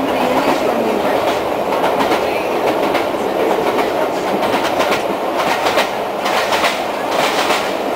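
Running noise of a moving railway carriage: a steady rumble with wheels clicking over rail joints, the clicks coming more often in the second half.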